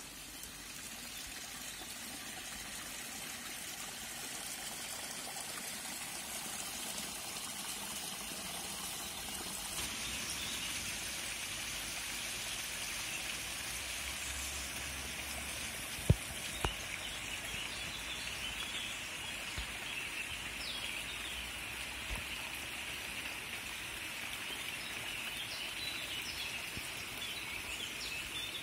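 Steady rush of running water from a small forest stream. A single sharp knock comes a little past halfway, and short bird chirps come in the last third.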